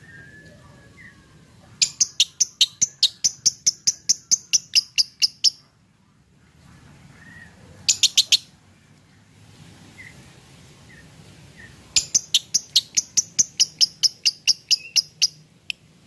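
Lovebird singing in fast runs of sharp, evenly spaced chirps at about five a second: a long run of about twenty notes, a short burst of four, then another long run. This is the rapid 'ngocok' chatter of a 'semi konslet' singer.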